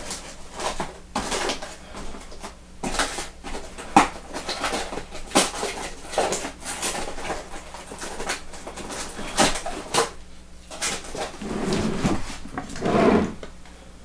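Irregular clicks, knocks and rustles of small things being handled, with a few low, muffled sounds near the end.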